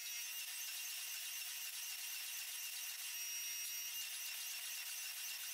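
Hydraulic forging press running, a steady hiss with a faint whine, as its dies squeeze a hot steel billet into a square bar.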